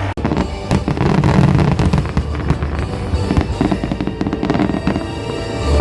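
Aerial fireworks bursting and crackling in rapid, dense succession, with music playing underneath.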